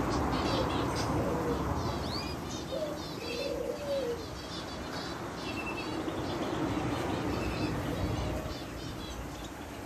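Aviary birds: many small birds chirping, with a dove cooing twice, about three and four seconds in. Underneath is a steady background rush.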